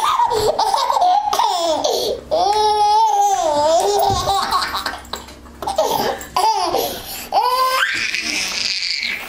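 Baby laughing hard in bursts of high squeals, with one long held squeal about two to four seconds in and a rising squeal near the end.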